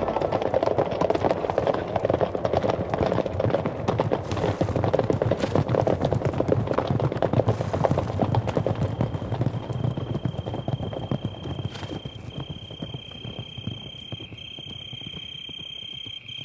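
Many horses' hooves pounding as a herd gallops, the hoofbeats slowly fading. From about halfway a steady high trill comes in and carries on as the hoofbeats die away.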